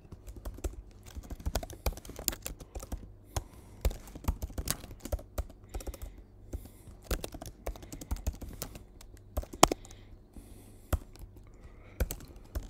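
Typing on a computer keyboard: a run of irregular keystrokes, with one sharper, louder key press about ten seconds in.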